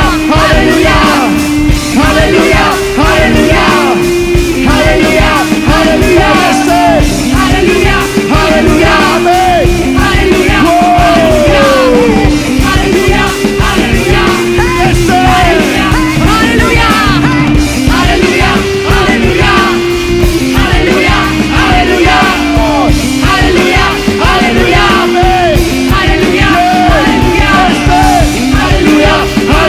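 A live worship band plays a loud, driving rock song with a steady beat, with no clear lyrics sung.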